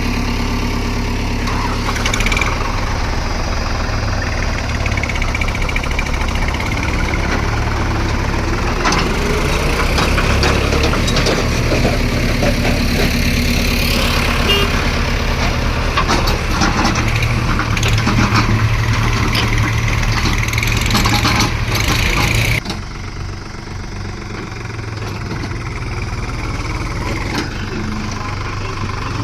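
Diesel engine of a JCB 3DX backhoe loader running steadily at work, with scattered knocks and clanks. Two-thirds of the way through it cuts suddenly to a quieter engine.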